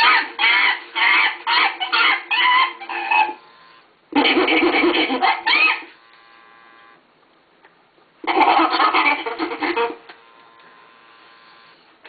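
ALIVE remote-control chimpanzee toy sounding chimpanzee calls through its speaker: three bursts of rapid, pulsed hooting calls, the first about three seconds long, the next starting about four seconds in and the last about eight seconds in.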